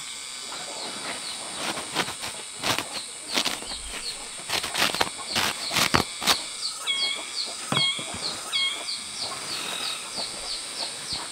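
A woven plastic sack rustling, crinkling and flapping as it is shaken out and emptied onto a pile of fine, dusty material, the rustles sharpest and densest in the middle. Short high bird chirps repeat throughout over a steady high whine.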